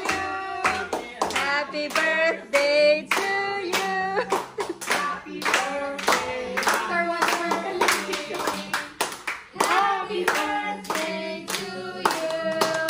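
A group of people singing together while clapping along in a steady rhythm.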